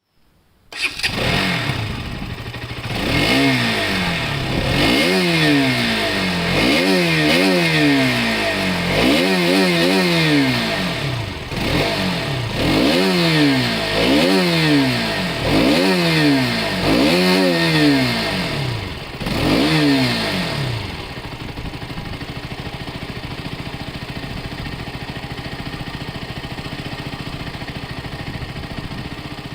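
Motorcycle engine starting about a second in, then revved with a dozen or so quick throttle blips, each a rise and fall in pitch, before settling to a steady idle at about 21 seconds.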